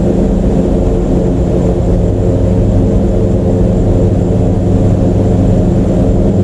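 A steady, low mechanical drone at a constant pitch, like a machine or engine running without change.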